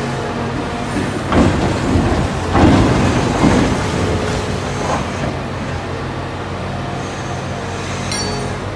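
Large Caterpillar mining excavator with its diesel engine running steadily. Over it come a few loud rushes of rock and dirt, from spilling and digging with the bucket, in the first half.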